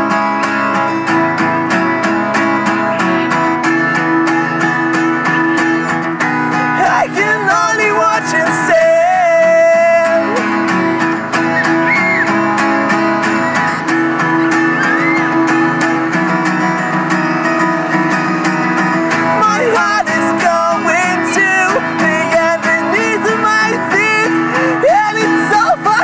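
Acoustic guitar strummed steadily in chords through an instrumental break of an acoustic emo song, with a singing voice coming back in near the end.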